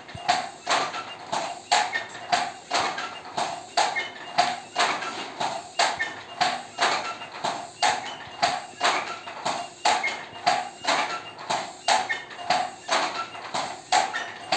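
Loom working steadily, giving an even run of sharp clacks at about two a second.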